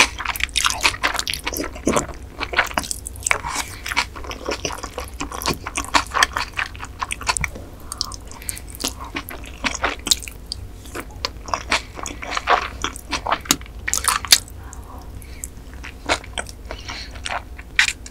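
Close-miked mouth sounds of eating noodles in spicy crab marinade: slurping and chewing, with wet smacks and sharp clicks in irregular bursts.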